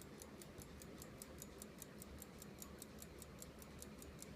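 Illinois pocket watch ticking faintly and evenly, about five ticks a second.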